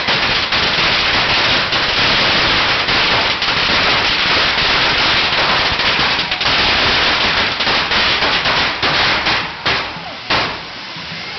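Firecrackers going off in a long, dense run of rapid cracks, thinning to a few separate bangs near the end.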